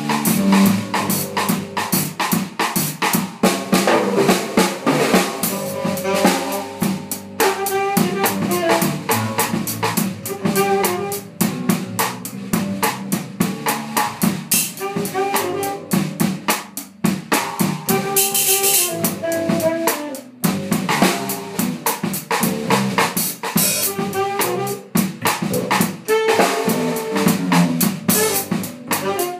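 Live jam of a drum kit, electric bass and saxophone: the drums play a busy groove with snare, bass drum and rimshots under a bass line and melodic saxophone phrases.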